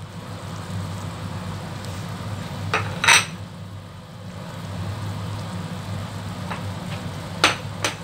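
A pot of soup at a rolling boil on the stove, bubbling steadily over a low hum. Sharp clinks of dishware against the steel pot come about three seconds in, the loudest of them, and twice more near the end.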